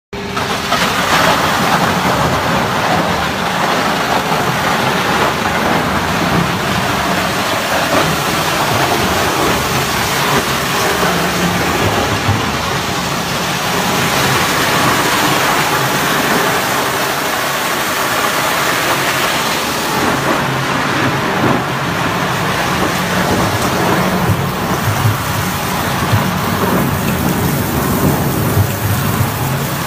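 Wood crusher running as it shreds wooden pallets, with chips pouring off its discharge conveyor: a steady, loud mechanical rushing noise with no distinct strokes.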